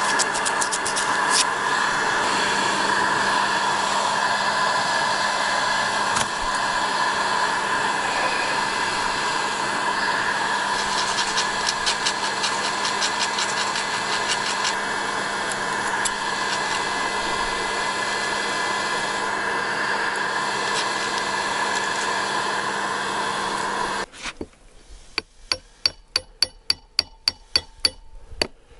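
An electric tool runs with a steady whir and a constant hum, then cuts off suddenly about five seconds before the end. Rapid light metallic taps follow, about three a second: a new slip ring being driven onto the alternator rotor's shaft through a pipe.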